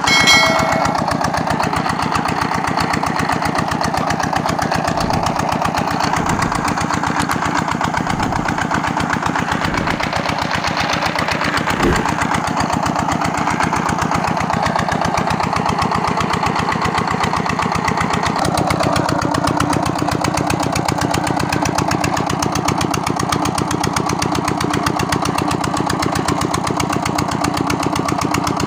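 A 25 HP diesel engine, freshly rebuilt with a new piston, rings and cylinder sleeve, running steadily with an even firing beat. A short ringing clink sounds right at the start and a single sharp knock about 12 seconds in.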